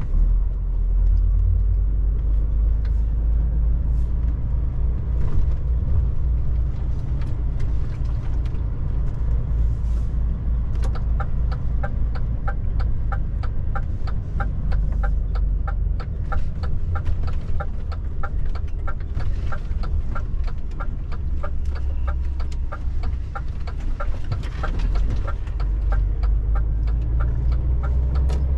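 DAF truck cab interior: the diesel engine and road noise give a steady low rumble, with scattered knocks from the patched road surface. Less than halfway in, a turn indicator starts ticking about three times a second and stops shortly before the end as the truck turns into a side road.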